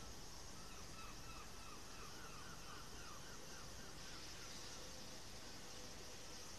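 A small bird singing a quick run of about a dozen short repeated notes, about three a second, rising a little in pitch and then falling away, over a steady hiss.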